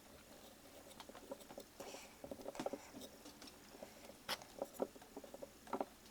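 Hands fiddling with small pump-housing parts: a string of light, irregular clicks and taps, the sharpest about four seconds in.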